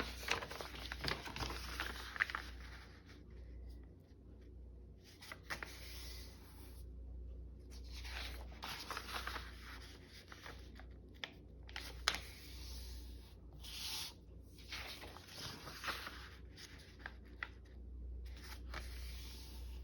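Sheets of paper being handled and gathered: stop-start rustling and scraping, with a few sharp taps.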